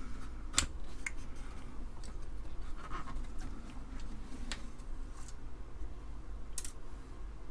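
Scattered light clicks and scratchy handling noise from a keyboard being worked on by hand, with its keycaps off and its switches and steel plate bare. The sharpest click comes about half a second in, and a few more follow.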